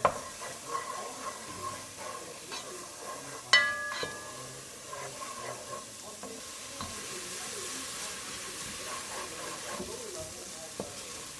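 Food sizzling in a Green Life ceramic nonstick pan as it is stirred, with small scraping clicks. About three and a half seconds in there is a single sharp, ringing metallic clink.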